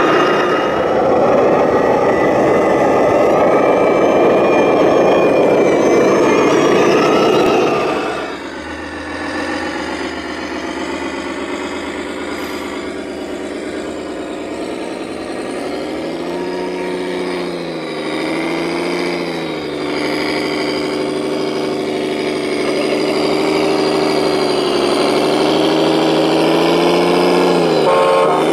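RC scale model trucks driving through flood water, their motors and engine sound rising and falling in pitch. About eight seconds in the sound changes abruptly, becoming quieter and steadier with a droning pitch that dips and recovers a few times.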